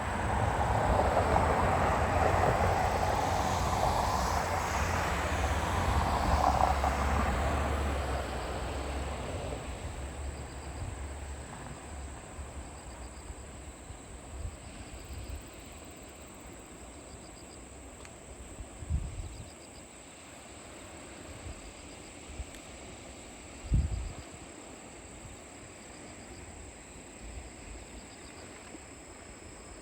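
A loud rumbling pass-by that fades away over about ten seconds, then a quiet outdoor background with two brief low thumps.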